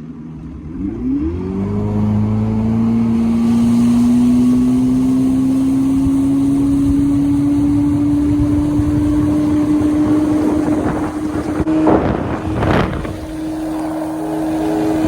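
Bass boat outboard motor throttling up, its pitch climbing quickly, then running at speed with the pitch creeping slowly higher. About twelve seconds in, two short loud rushing bursts cut across it.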